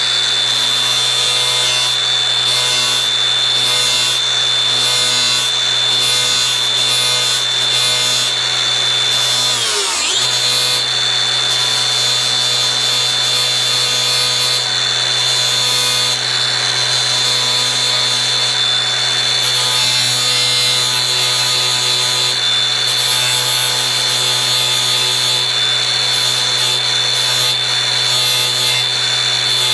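Angle grinder with a flap disc running at speed and sanding down cut-off plastic ribs on a UTV hood, a steady high whine over a low hum. About ten seconds in the motor briefly drops and winds back up.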